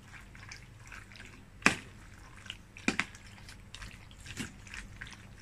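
Macaroni salad dressed with mayonnaise being stirred and turned in a plastic bowl: soft wet squishing of the pasta, with two sharp clicks about a second apart, the first nearly two seconds in.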